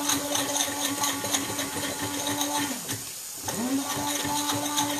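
Electric blender blending basil pesto with walnuts and pecorino: the motor spins up to a steady whir, winds down about three seconds in, and starts up again half a second later, with short clicks over the hum.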